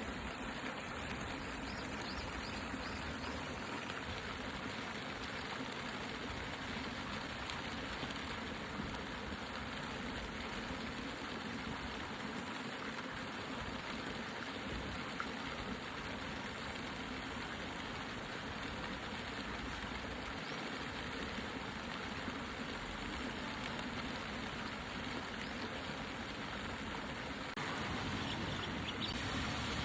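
Steady rain falling on wheat ears and cherry leaves, an even hiss of drops with no pauses, with a low rumble entering and the sound growing a little louder near the end.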